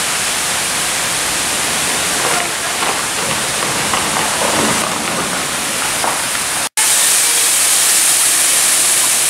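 Steady rushing of a waterfall, water falling and splashing onto rock. About two-thirds of the way in the sound cuts out for an instant, then the rush resumes slightly louder and hissier.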